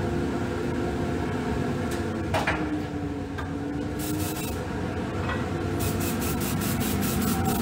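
Airbrush spraying cocoa butter: short hissing spurts start about four seconds in and come in quick succession near the end, over a steady machine hum.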